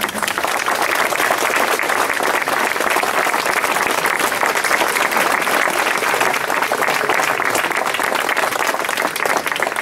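Audience applauding: a dense, steady patter of many hands clapping, thinning out near the end.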